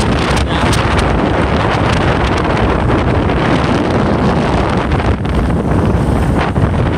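Wind buffeting the microphone of a camera on a moving vehicle, with steady road and engine noise underneath.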